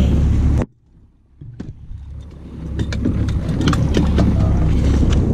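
Wind rush on the microphone over the low hum of an Evinrude 90 outboard running in gear on a small boat. About half a second in, the sound cuts out abruptly and goes almost silent for under a second, then builds back up, with scattered clicks and knocks.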